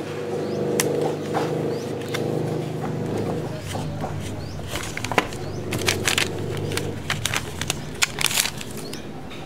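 Sticker sheet crackling, with a series of sharp ticks, as stickers are peeled from their backing and pressed onto a hard plastic toy car. A low steady hum runs under much of it.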